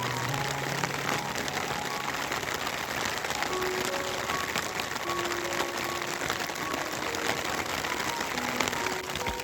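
Steady rain falling, with quiet background music of short held notes over it.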